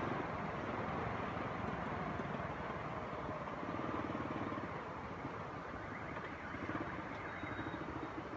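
Steady engine rumble and road noise from a vehicle moving slowly in traffic.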